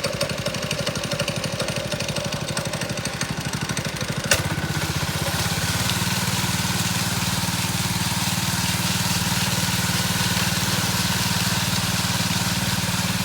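Concrete mixer truck's engine running, pulsing low at first. After a sharp click about four seconds in, it runs steadier and a little louder.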